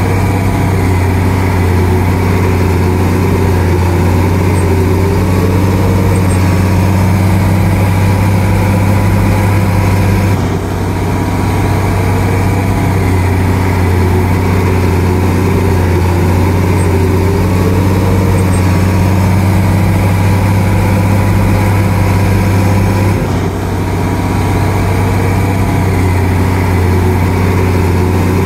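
Bulldozer's diesel engine running steadily with a deep, even hum, dipping briefly about a third of the way through and again near the end.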